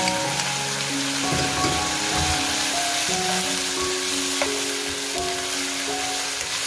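Sliced chicken gizzards sizzling in hot oil in a nonstick wok while being stirred with a wooden spatula, a steady frying hiss. Background music with slow held notes plays under it.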